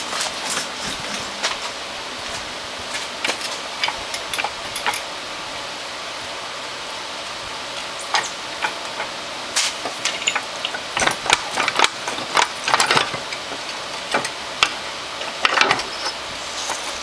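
Scattered metallic clicks and clunks as a 2008 Honda Foreman 500's rear differential is wiggled and slid off the drive shaft and swing arm. They are sparse at first and come thick and fast in the middle, over a steady background hiss.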